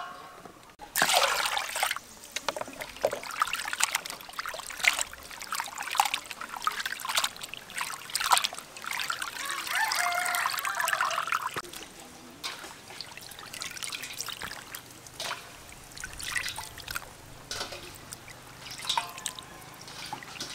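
Water splashing, trickling and dripping in a stainless steel bowl as raw chicken intestines and unlaid egg yolks are washed by hand and lifted out of the water, in irregular splashes that grow sparser near the end.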